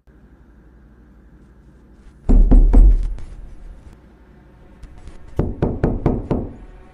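Knocking on a door: a burst of about four heavy knocks, then a few seconds later a second round of five or six quicker knocks, over a faint background drone.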